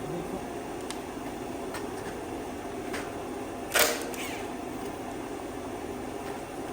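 Steady hum of a shop heater running, with a few light clicks and one sharper knock a little past the middle.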